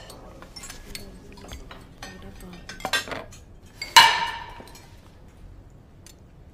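Cutlery and crockery clinking at a dinner table: spoons and forks tapping and scraping on plates and bowls. About four seconds in comes one louder ringing clink of a dish that fades over about a second.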